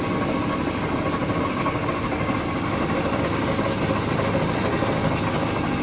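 LeBlond Regal 16 x 72 engine lathe running steadily under power with its threading feed engaged, the lead screw turning.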